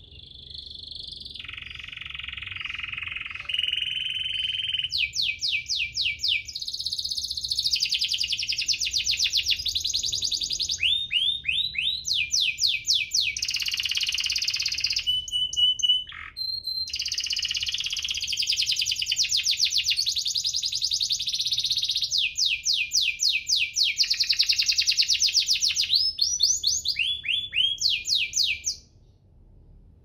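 Domestic canary singing a long, high-pitched song of rapid trills (rolls) and chirps, with sweeping notes between the rolls and short pauses; the song cuts off suddenly near the end.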